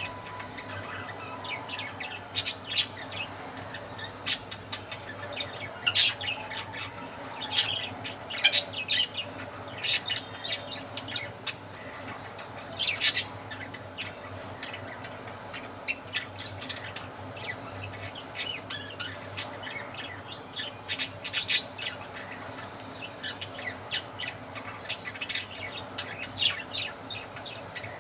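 Budgerigars chirping in quick runs of short, high calls with brief gaps between them, over a steady low hum.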